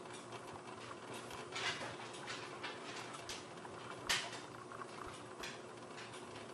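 A few scattered knocks and clicks, the loudest a sharp one about four seconds in, over a faint steady hum.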